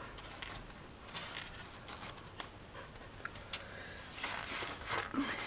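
Fine craft gravel rustling and clicking as fingers push and spread it across a craft board: scattered small ticks, a sharper click about three and a half seconds in, and denser scraping near the end.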